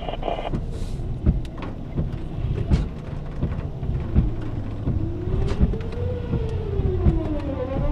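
An outdoor tornado warning siren wailing, its pitch rising and falling slowly, coming in about halfway through. Under it, irregular sharp taps and a low steady hum.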